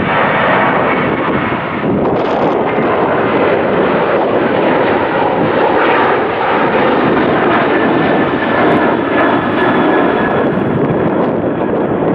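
Boeing 737-800's CFM56 turbofan engines at climb power just after takeoff: a loud, steady jet noise with a faint high whine running through it.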